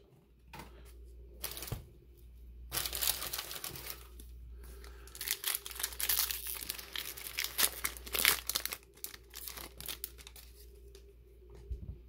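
Foil wrapper of a trading-card booster pack being torn open and crinkled, in several loud bursts of rustling, then fainter ticks as the cards are handled near the end.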